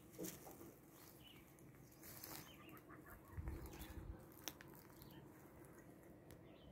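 Near silence: faint outdoor ambience with scattered light clicks and rustles, a few faint short chirps, and a brief low rumble about three and a half seconds in.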